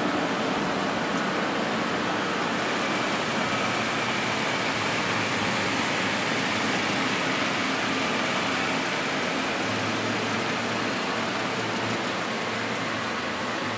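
Steady hum and noise of running industrial machinery, even throughout with a few faint steady tones underneath.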